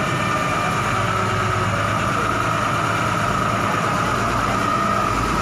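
Mitsubishi light truck's diesel engine running steadily under load as the truck, heavily laden, crawls through deep mud ruts, a steady whine over a low rumble.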